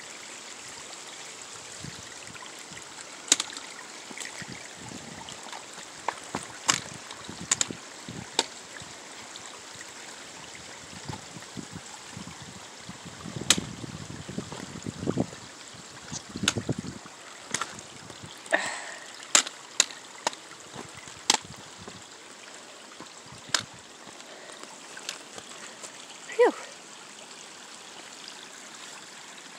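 Small mountain stream running over rocks in a steady trickling rush, with sharp clicks and knocks scattered through from footsteps on the wet rock. A short squeak sounds near the end.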